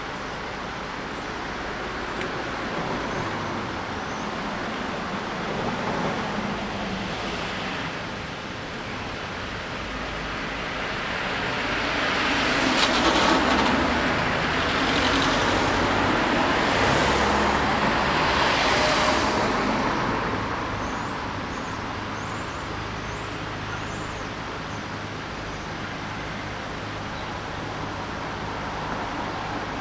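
Road traffic: a steady rumble of cars at a junction, with a string of about four cars driving close past one after another in the middle.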